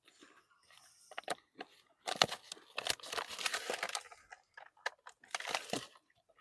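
Crinkling of food packaging being handled, in irregular bursts with sharp crackles; the longest stretch comes about two seconds in and another near the end.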